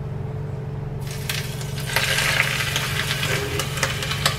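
Hot oil poured over steamed fish topped with spring onions, sizzling and crackling as it hits. The sizzle starts about a second in and is loudest a second later, over a steady low hum.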